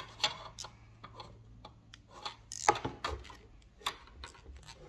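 Small irregular clicks and rustles of wires and plastic parts being handled and fitted into the terminals of an electrical panel, with one sharper click about two and a half seconds in.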